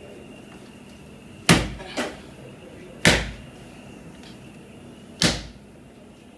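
Ball of flour dumpling dough slammed down onto a kitchen countertop during kneading: three heavy thuds about a second and a half to two seconds apart, with a smaller knock just after the first.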